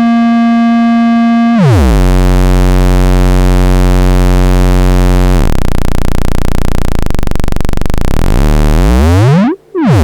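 Audio feedback from a modular synthesizer: a loud buzzing tone that drops abruptly to a deep low buzz about a second and a half in as the volume is turned up, then turns harsh and noisy. Near the end it swoops down and back up in pitch as the volume is raised and lowered, cutting out briefly. The higher the volume, the lower the note.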